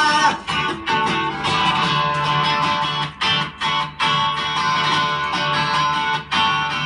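Guitar strumming in the instrumental break of a song, with a few short stops in the rhythm.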